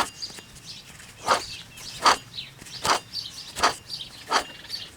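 A series of six sharp knocks, roughly one every three-quarters of a second, from work on a C5 Corvette's rear wheel hub assembly. Birds chirp faintly behind them.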